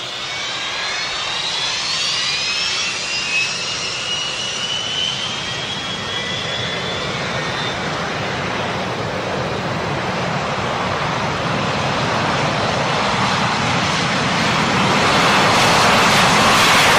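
Jet airliner engines spooling up for takeoff. A whine rises in pitch over the first few seconds and holds steady, while the engine roar builds and grows louder toward the end, as on a takeoff run.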